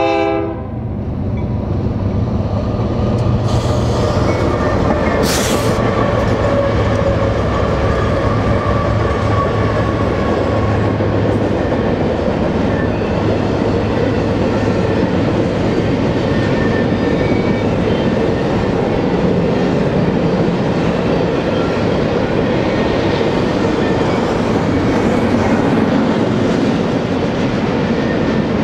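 A BNSF double-stack intermodal freight train passing close: the diesel locomotives go by, then the stack cars roll past in a steady rumble with clacking wheels. The last of a horn blast cuts off right at the start.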